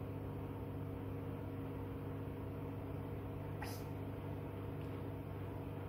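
A steady machine hum from a running appliance, with one brief faint click about three and a half seconds in.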